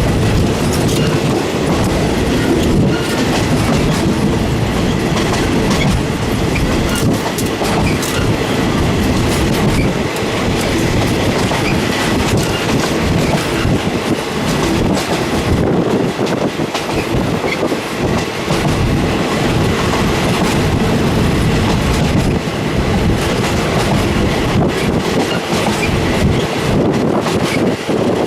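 Passenger train running at speed, heard from inside a third-class carriage: a steady loud rumble with the rapid clickety-clack of wheels over the rail joints.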